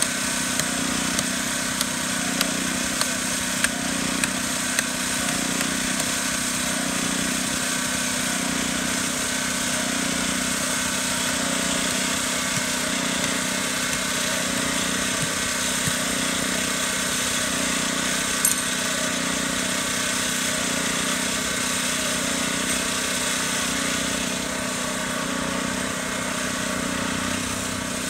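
A small engine on job-site equipment running steadily at one constant speed. A few light ticks come in the first five seconds.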